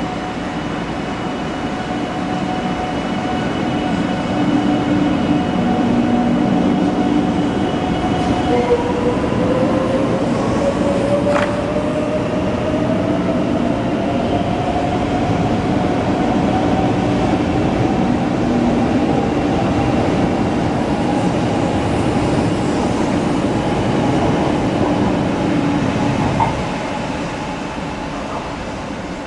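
500 series Shinkansen pulling out and accelerating past, its electric traction motors whining over the rumble of the cars rolling by. The whine holds a steady pitch, then about nine seconds in drops to a lower tone that rises steadily as the train gathers speed, with one sharp click shortly after. The sound falls away near the end as the last car moves off.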